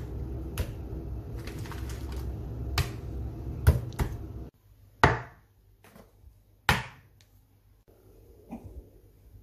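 Raw venison steaks being handled on a wooden chopping board: light knocks, then two sharp slaps of meat on wood about a second and a half apart. Under the first half a steady low hum runs and then stops abruptly.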